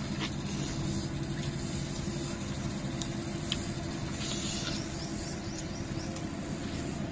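Steady low mechanical hum, like an engine running, throughout. Over it come a few faint clicks and a brief soft crinkle about four seconds in, from the plastic bag and gloves as food is handled and eaten.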